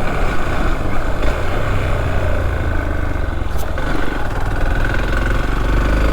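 Motorcycle engine running steadily while riding, with the engine note rising slightly near the end.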